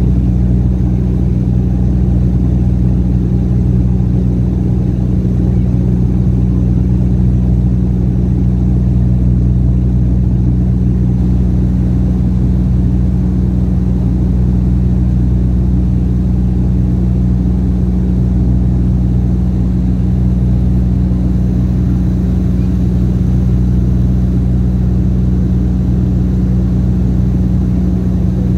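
Turboprop airliner's propeller and engine droning steadily, heard inside the passenger cabin in flight. The drone is a strong low hum of several stacked tones with a rushing noise above it.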